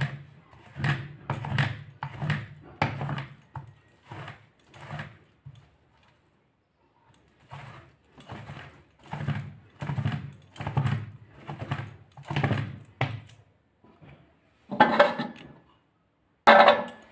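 Fibrous palmyra palm fruit seed rubbed by hand against a toothed wooden scraping board, a rough scraping stroke about twice a second, scraping the pulp off, with a short pause midway. Near the end, two brief bursts of a voice.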